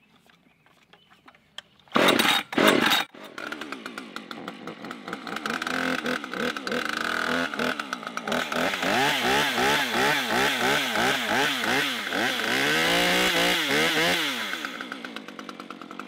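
Husqvarna top-handle arborist chainsaw's two-stroke engine being pull-started: two loud pulls about two seconds in, then the engine catches and runs. It is revved up and down about twice a second, then drops back to a quieter idle near the end.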